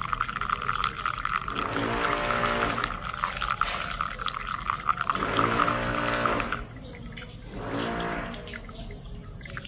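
Hot water poured in a thin, steady stream from a gooseneck kettle onto coffee grounds in a paper-filtered pour-over dripper. The pour stops about six and a half seconds in.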